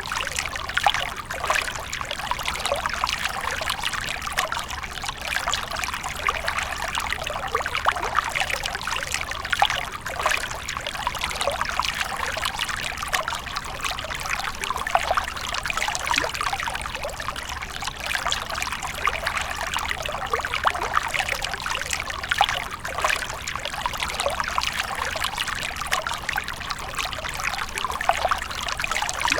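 Water from a fountain splashing and trickling steadily, a continuous patter of small splashes.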